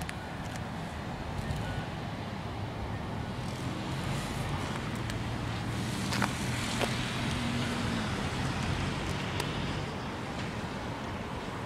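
Road traffic noise: a steady hiss of passing vehicles, with a vehicle engine's low hum swelling in the middle, and a few faint clicks.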